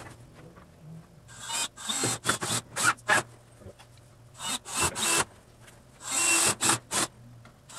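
Cordless drill driving screws into the wooden frame, in three spells of about one to two seconds each.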